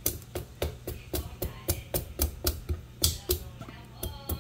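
Large kitchen knife chopping the rind off a squash onto a wooden chopping board, a steady run of sharp knocks about three to four a second.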